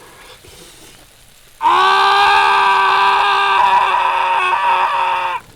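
A loud, long, held scream at one steady pitch. It starts suddenly about a second and a half in, lasts about four seconds, and cuts off abruptly.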